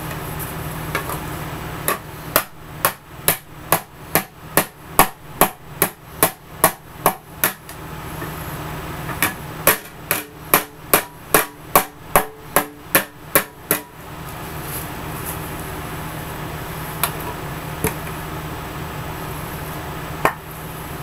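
A hammer beating a bent metal license plate on a wooden block to straighten it. It comes in two fast runs of about three blows a second, each lasting about five seconds with a short pause between, then a few single taps near the end.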